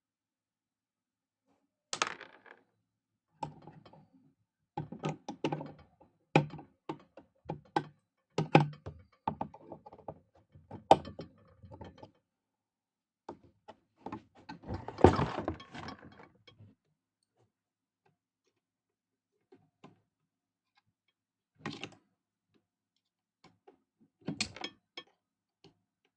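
Metal parts and tools being handled while a vintage PFAFF industrial sewing machine is taken apart: irregular clicks, knocks and clatter in clusters, loudest in a longer clatter about halfway through, then a few separate knocks near the end.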